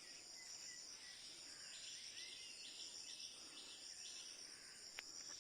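Steady high-pitched insect buzzing, like crickets, with a quick run of short repeated chirps about halfway through and a single sharp click near the end.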